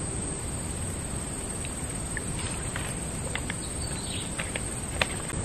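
Steady outdoor background hiss with a scatter of short, high chirps from insects and birds in the middle, and a single sharp click about five seconds in.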